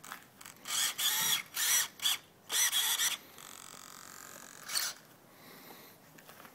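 Recoil pull-starter on the FG Baja's ported Zenoah 26 cc two-stroke engine being yanked several times in quick succession, each pull a brief ratcheting whir. The engine does not start.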